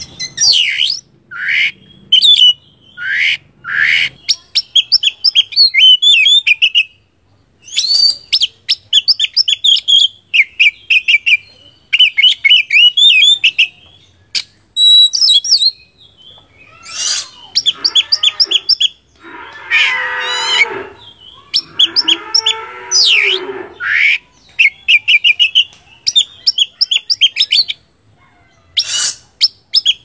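Oriental magpie-robin (kacer) singing loudly in a fast string of short phrases: rapid trills, whistled notes and swooping calls with brief pauses between them. About two-thirds of the way in, the song turns harsher and scratchier, with lower notes.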